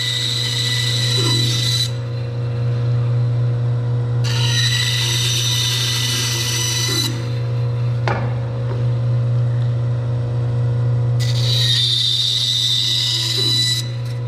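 Grizzly G0555X bandsaw running with a steady low hum, its blade cutting into a pine board three times in passes of about three seconds each, with a high hissing whine during each cut. These are relief cuts. The first cut is already underway and ends about two seconds in, the second falls in the middle, and the third comes near the end.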